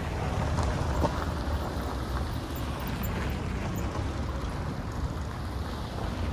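Steady low rumble of wind buffeting the microphone, with road traffic going by.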